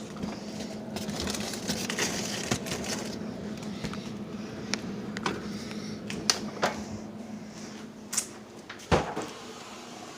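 Kitchen handling noises: scattered clicks and knocks over a steady low hum, with a louder knock about nine seconds in.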